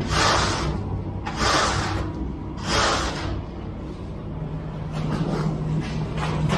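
Metal screed straightedge scraping across freshly poured wet concrete as it is sawn back and forth to strike off the slab, one rasping stroke about every second and a half, the strokes getting fainter and quicker in the second half. A low steady engine drone runs underneath.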